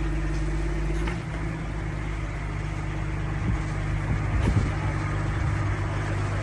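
Diesel engine of a rotary piling rig running steadily, its note shifting about a second in. There are a couple of short knocks, one about a second in and one near the middle.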